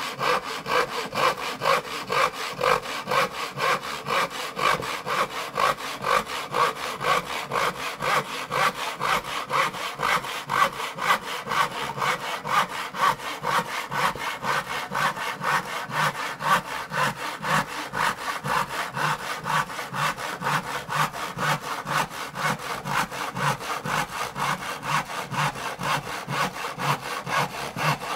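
Saw cutting wood in an even back-and-forth rhythm, about two to three strokes a second, without a break.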